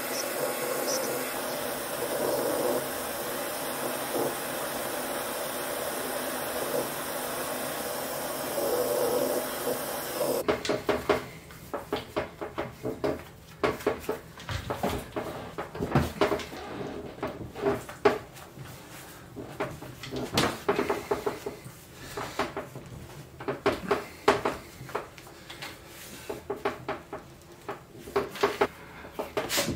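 A gas torch's flame running steadily for about ten seconds while it heats a chain link red-hot. It cuts off suddenly, followed by the irregular clinking and rattling of metal chain links as the chain is pulled and handled.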